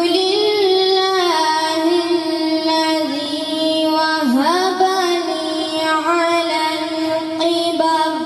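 A boy singing a naat, an Urdu devotional poem in praise of the Prophet, unaccompanied, in long held melodic notes. About four seconds in his pitch dips and climbs back up, and his voice eases off near the end.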